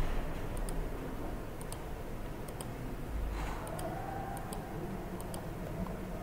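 Computer mouse clicking about eight times, a click every second or so, over a steady low background hum.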